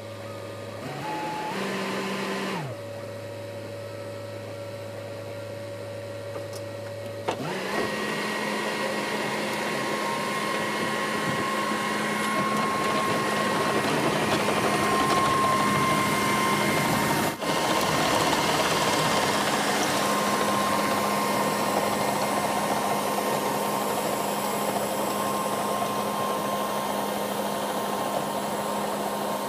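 Cat 308 mini excavator's diesel engine running at low idle, revved briefly about a second in, then throttled up to working speed about seven seconds in and running steadily at high revs with a thin steady whine on top.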